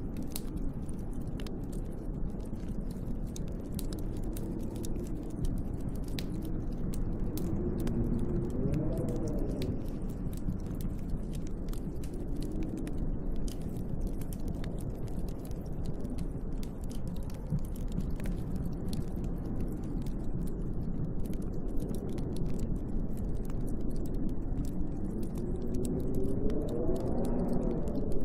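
Storm wind blowing steadily, with whistling gusts that rise and fall in pitch about a third of the way in and again near the end, over the fine crackle of a wood fire.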